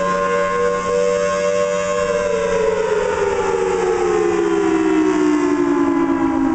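Federal Signal Thunderbolt 1003 outdoor warning siren sounding a loud two-note tone that holds steady for about two seconds, then slides steadily down in pitch. A lower steady hum underneath stops about five seconds in.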